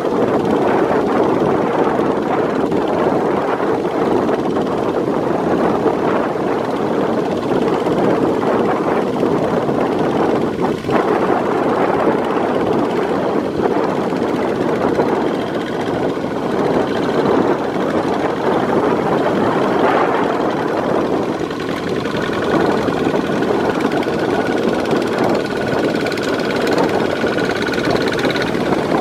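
Kubota RT140 walking tractors' single-cylinder diesel engines running steadily under load as they pull cultivators through a flooded paddy, with water churning around the cage wheels.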